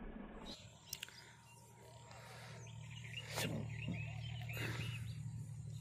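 Birds chirping in a quick run of short calls over a low steady hum, with a sharp click about a second in.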